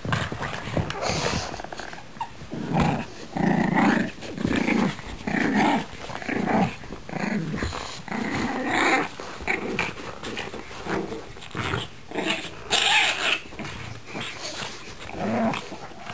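Pugs growling in play while tugging over a plush toy, in a string of short growls about one a second.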